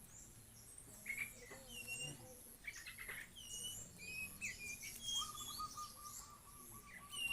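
Several small birds chirping and whistling in short, high, gliding notes, with a fast trill from about five seconds in.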